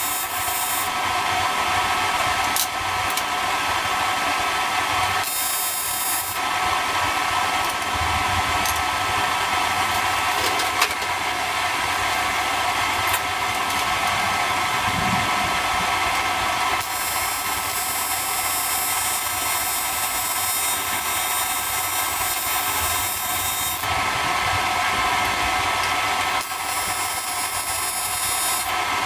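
AC TIG welding arc on thin aluminum tube: a steady buzzing hiss held for long stretches, with a high hiss cutting in and out several times. The welder is practising on aluminum and burning holes through the tube.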